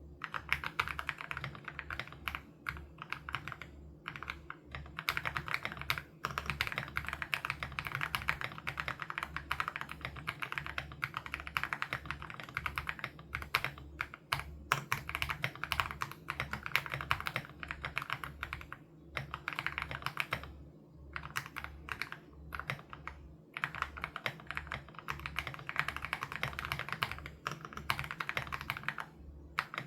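Aula F87 Pro mechanical keyboard with HMX Sarcophagus switches, typed on in fast, continuous runs of keystrokes, with a few short pauses of about a second.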